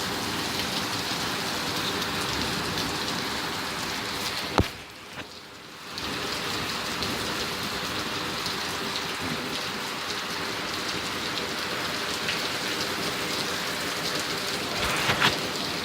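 Heavy rain pouring steadily, with a sharp click about four and a half seconds in followed by a brief, roughly one-second drop-out.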